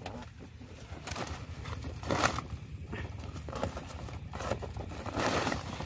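Rustling and scraping of footsteps in dry leaf litter and of hands handling a wire-mesh cage trap wrapped in a woven plastic sack, in irregular bursts, strongest about two seconds in and about five seconds in.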